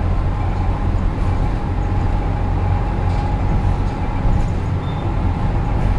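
Running sound of a route bus under way, heard from inside the passenger cabin: a steady low engine drone and road noise, with a thin steady whine above it.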